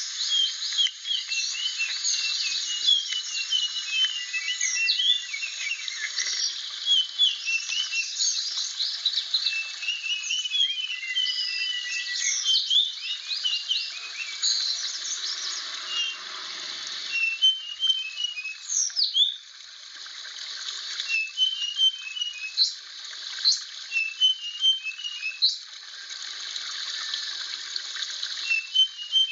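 Blue flycatcher (sikatan biru) singing: short phrases of quick chirped and whistled notes, repeated every second or two, over a steady high hiss.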